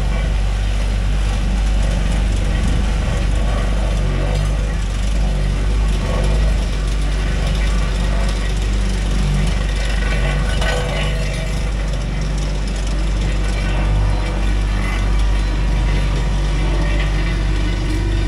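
Cat 289D3 compact track loader's diesel engine running steadily under work, with mechanical clatter and rattling over the engine hum.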